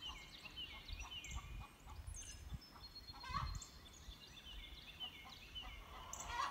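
Hens cackling faintly in a string of short repeated calls: the egg song that laying hens make.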